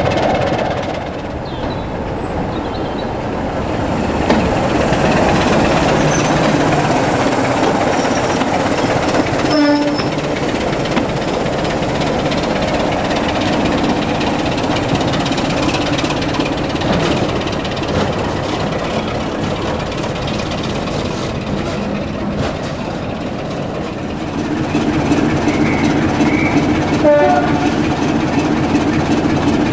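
Class 27 diesel locomotive's Sulzer engine running steadily, with a brief horn blast about ten seconds in and another short toot near the end.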